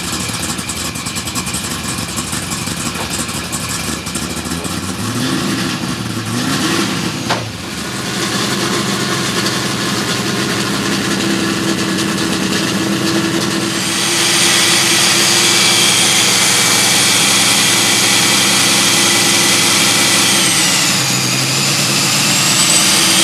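Supercharged LS2 V8 of a drift Holden VE Commodore revving, its pitch rising and falling. About halfway through it gets louder and a steady high-pitched whine joins it, dipping briefly near the end.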